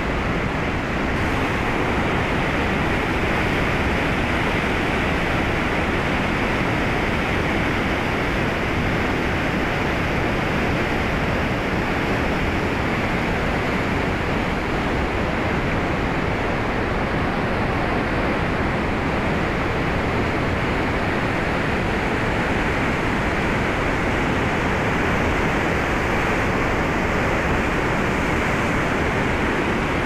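Steady, unbroken rushing of a swollen mountain river in flood, its muddy water churning through rapids around boulders.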